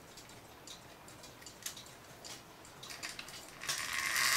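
Faint, scattered clicks of cuckoo clock chain links and a screwdriver tip against the wooden case, then, near the end, a louder metallic chain rattle as a chain is let go and runs through the hole in the bottom of the case.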